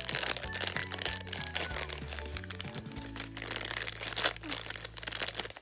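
Background music with low held bass notes over crinkling and tearing of a toy blind bag's packaging being torn open. The music cuts off abruptly at the very end.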